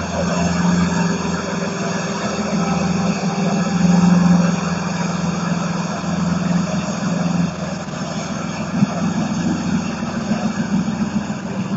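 Lamborghini Aventador's V12 engine running at low revs as the car creeps away, a steady low drone that swells about four seconds in and drops back a little past halfway.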